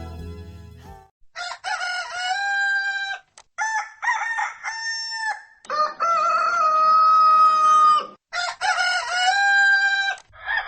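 Rooster crowing about four times in a row, each crow lasting a second or two, with the third crow the longest. The tail of a song fades out in the first second.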